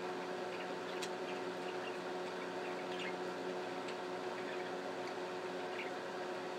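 Budgerigars giving faint, scattered short chirps, with a couple of sharp clicks, over a steady machine hum.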